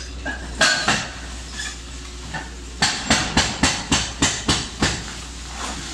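Excavator demolishing a building, with a low, steady engine hum underneath. There is one loud knock, then a rapid run of about nine sharp strikes, roughly four a second.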